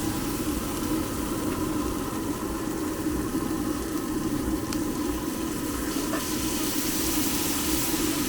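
Food sizzling in a hot pan on a street-food cart, a steady hiss with a couple of faint clicks.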